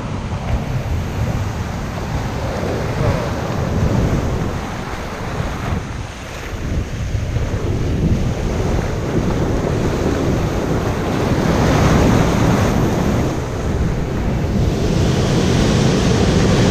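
Ocean surf breaking and washing through the shallows at the water's edge, with wind buffeting the microphone. The wash grows louder and hissier near the end.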